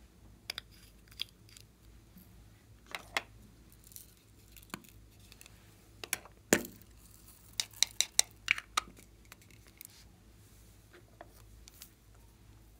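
Small plastic makeup containers and a glass nail polish bottle being handled, giving scattered sharp clicks and taps as caps and a plastic compact case are opened. The loudest click comes about six and a half seconds in, then a quick run of clicks around eight seconds.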